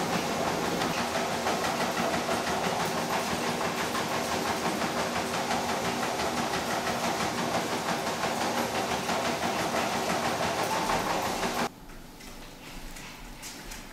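Motorized treadmill running with a small dog walking on its belt: a steady motor whine with a fast clatter from the belt. It cuts off suddenly near the end.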